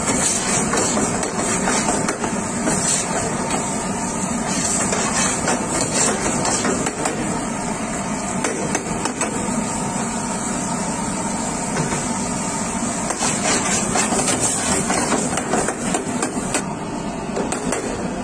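Busy kitchen clatter: repeated hard knocks and metal clanks of utensils over a steady noisy background.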